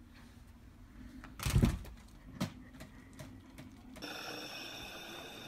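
Plastic cat-flap clattering with light clacks and one heavy thump about a second and a half in. After about four seconds a steady hum of several held tones takes over.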